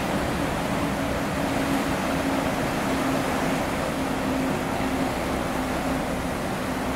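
The Skeena Queen car ferry's engines and propellers running with a steady low drone, churning the water into wash at the terminal.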